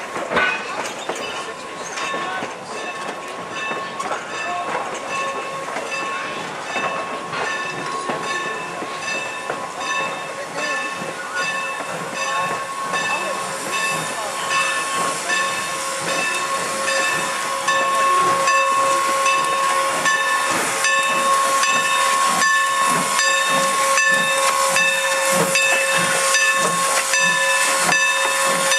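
Steam locomotive No. 475, a 4-8-0, standing with its train: steady steam hiss with a high ringing tone and regular clicks. It grows louder about two-thirds of the way in as the locomotive comes close.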